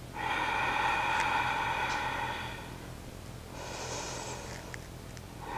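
A woman breathing slowly and deeply through a held plank: a long, louder breath lasting about two and a half seconds, then a quieter, hissier breath, then another louder breath starting near the end.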